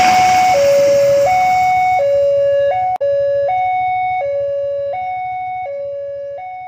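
Railroad crossing warning alarm sounding a steady two-tone ding-dong, alternating between a higher and a lower tone about every 0.7 s. The rumble of a passing train fades out over the first two seconds. The alarm drops out with a click about halfway, then fades near the end.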